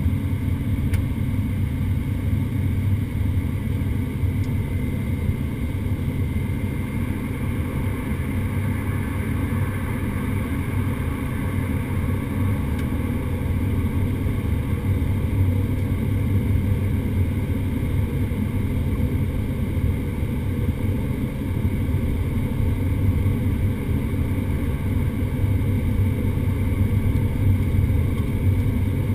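Twin Pratt & Whitney PT6A turboprop engines and propellers of a Beechcraft King Air C90GTx running with a loud, steady drone, heard inside the cockpit.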